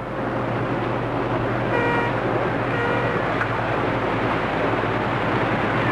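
Steady rush of wind and sea with a low hum in the first half, and short horn toots about two and three seconds in.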